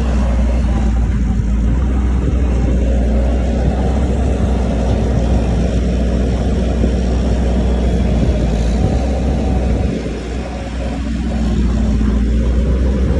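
Heavy machine's diesel engine running with a deep, steady rumble. It eases off briefly about ten seconds in, then builds back up.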